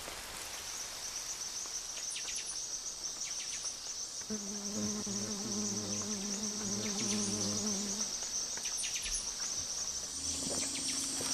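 Rainforest insects keeping up a steady, high-pitched chorus. A low pitched tone with a slight waver joins for a few seconds in the middle.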